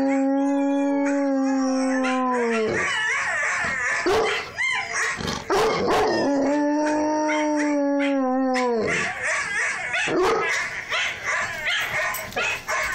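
Eight-month-old Bouvier des Flandres puppy howling: two long, steady howls that drop in pitch at the end, with short yips and whines between them and after the second.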